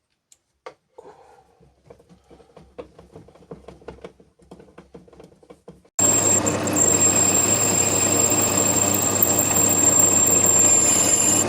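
Faint clicks and handling knocks. About halfway through, the BF25 benchtop milling machine's spindle motor starts suddenly and runs steadily with a high-pitched whine over a low hum, drilling a brass part.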